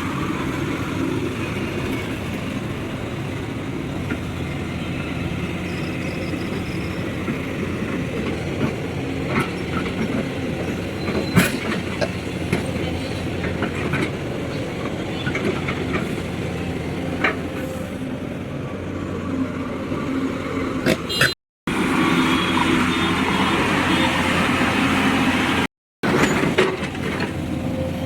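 Hyundai 215 Smart Plus excavator's diesel engine running steadily, with occasional sharp metallic clanks. The sound cuts out briefly twice near the end.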